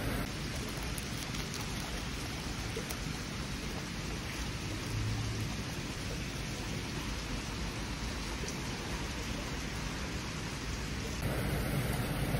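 Rain falling, a steady even hiss.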